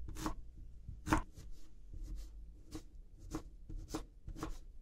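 Kitchen knife chopping an onion on a plastic cutting board: a sharp knock of the blade against the board about every half second, slightly uneven.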